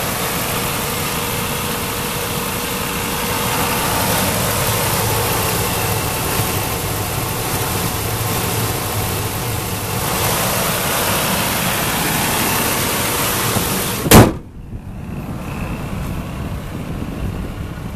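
2004 Ford F-250 Super Duty's engine idling steadily with the hood up. About fourteen seconds in, the hood is slammed shut with one loud bang, and the idle goes on quieter and muffled after it.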